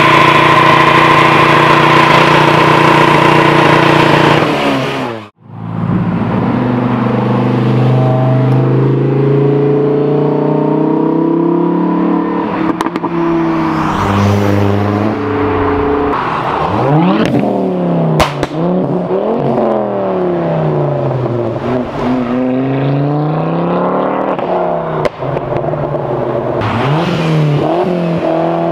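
Modified car engines revving hard: first an engine held at high, steady revs for about five seconds while the car spins its tyres in a smoky burnout, then, after a sudden break, engines revving up and down again and again, the pitch rising and falling.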